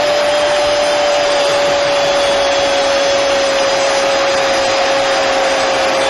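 A football commentator's long drawn-out goal cry, one held note that sags slightly in pitch, over the steady roar of a stadium crowd cheering a goal.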